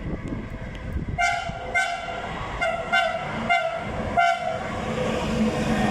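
Train horn sounding a series of about six short toots at one steady pitch, from a train approaching through the gorge. A low steady hum comes up near the end.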